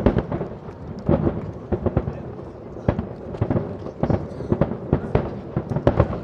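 Aerial firework shells bursting in quick, irregular succession, about two or three sharp bangs a second, each trailing off in a rumbling echo.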